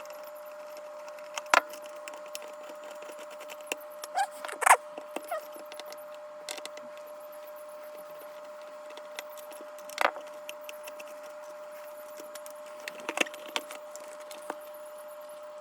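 Handling noises from taking apart a vintage rotary telephone: scattered sharp clicks and knocks of the parts and housing being worked loose, the sharpest about a second and a half in and near five seconds, over a faint steady hum.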